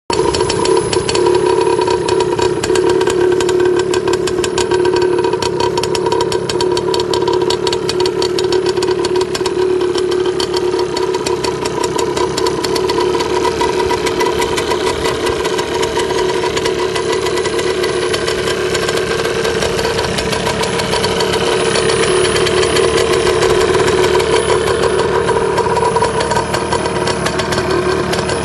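Enduro motorcycle engine idling steadily, a rapid, even stream of exhaust pulses.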